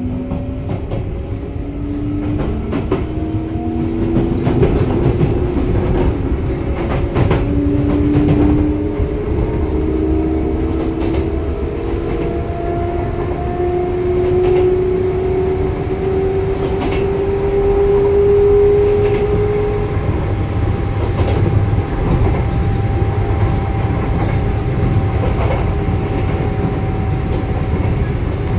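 Sotetsu 9000 series electric train running, heard from on board: the inverter and traction-motor whine climbs in pitch in several steps as the train accelerates, over a low rumble and the clack of wheels over rail joints. About two-thirds of the way through, the rising tones fade, leaving one steady tone and the running noise.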